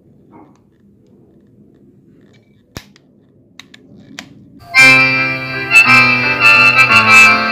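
A few sharp clicks from the angle grinder's switch being worked with no motor starting: the repaired grinder won't turn on. About five seconds in, loud music with a free-reed instrument begins and takes over.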